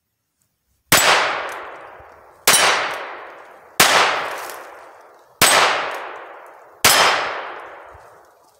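Five gunshots fired one at a time about a second and a half apart, each followed by a long ringing decay.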